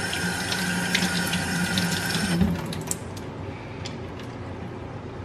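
Kitchen tap running into a sink, turned off about halfway through; a few light clicks and clinks follow.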